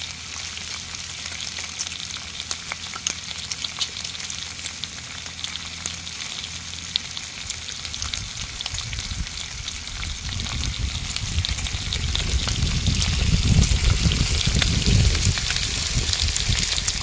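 Peppered bacon strips frying on a Blackstone flat-top griddle: a steady sizzling hiss full of sharp little pops of spitting grease. A low rumble swells in under it in the second half.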